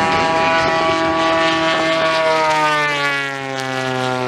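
Propeller engines of radio-controlled scale-model Spitfires droning in flight. The pitch falls gradually over about three seconds as a plane passes, and the sound dips briefly near the end.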